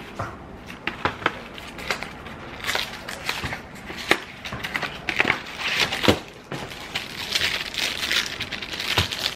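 Cardboard tearing and plastic packaging crinkling as a box of ready-to-bake cookie dough is opened and its plastic tray of dough pulled out, in irregular crackles and clicks.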